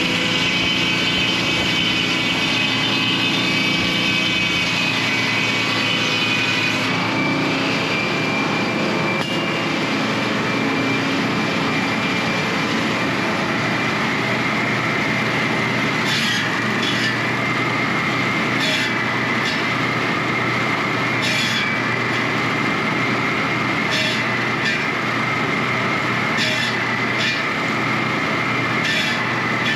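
An engine-driven machine running steadily with a high whine. In the second half there are short, sharp clicks every couple of seconds.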